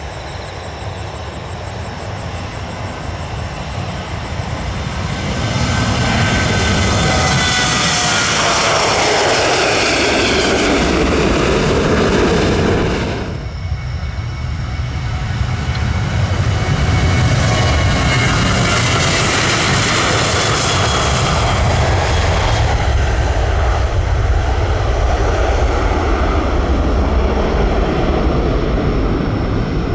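Embraer 170 jet airliner taking off, the roar of its twin turbofans building and its whine falling in pitch as it passes. About thirteen seconds in, the sound breaks off and is replaced by a Boeing 737-800 taking off, its jet roar rising again and holding loud.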